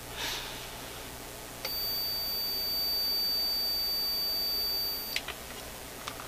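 Digital multimeter's continuity beeper sounding one steady high beep for about three and a half seconds, starting about a second and a half in. The probes are across a near-zero-ohm connection, showing that the wire runs unbroken from the tube's plate pin.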